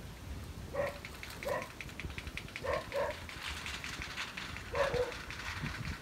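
Five short animal calls, two of them close together near the middle, over a faint, rapid ticking.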